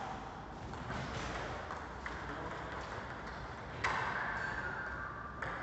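Table tennis balls clicking off paddles and tables during rallies, a few sharp ticks over steady background noise. A louder stretch with a held tone starts about four seconds in.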